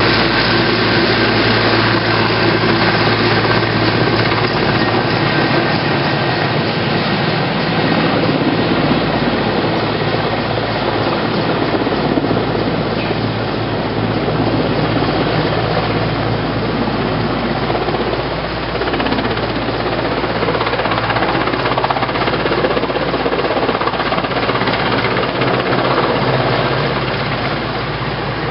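Heavy transport helicopter flying with an underslung load: a loud, steady rotor and turbine noise that eases a little in the later seconds.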